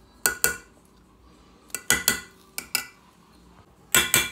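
A metal spoon clinking against metal cookware while spice powder is spooned in: about nine short, sharp clicks with a metallic ring, in small groups of two or three.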